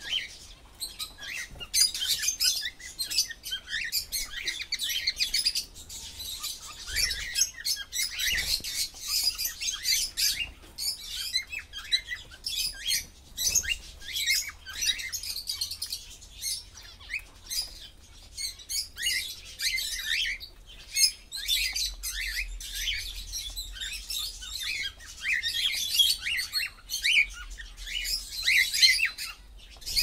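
Cockatiels calling in a cage: a dense stream of short, high chirps and whistles in bouts. These are their breeding-season mating calls.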